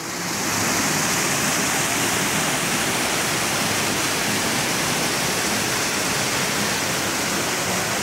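Creek waterfall cascading down sloping bedrock into a pool, a steady rush of white water that swells up in the first second, then holds steady.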